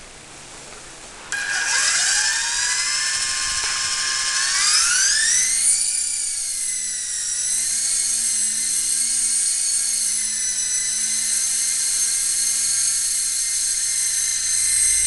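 Small indoor RC toy helicopter with twin stacked rotors: its electric motors start with a sudden high whine about a second in, rise in pitch a few seconds later as the rotors spin up for lift-off, then hold a steady whine with slight wobbles in pitch as it hovers and flies.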